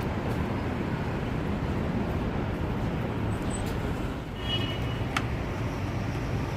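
Steady rumble of street traffic, with a brief high chirp about two-thirds of the way in and a short click just after.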